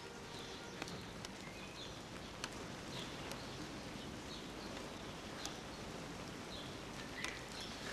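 Faint steady outdoor background hiss, with a few brief, high bird chirps scattered through it.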